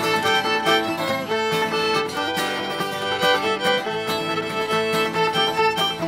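Bluegrass fiddle playing the lead melody over acoustic guitar and banjo, an instrumental break with no singing.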